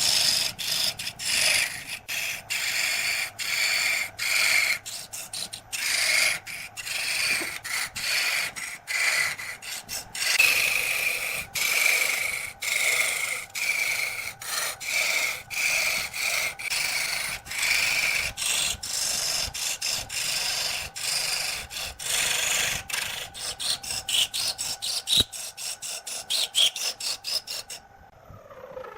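Tool rasping and scraping across wood in quick repeated strokes, two or three a second, faster near the end, then stopping abruptly about a second before the end.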